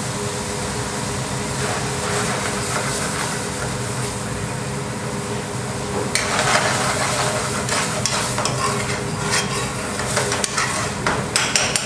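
Steady hum of the kitchen gas burner and extraction. About six seconds in, a thick chicken curry starts sizzling in a metal frying pan and is stirred and scraped with a spoon, with uneven scrapes and knocks against the pan, as the sauce reduces down until thick.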